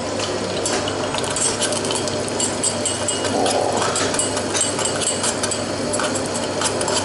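Metal spoon clinking and scraping against a small metal pan while stirring sweet red pepper into it on a gas burner: many quick, irregular ticks.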